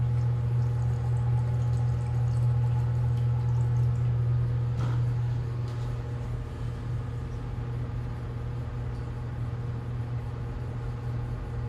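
A steady low hum, with a faint brief rustle about five seconds in.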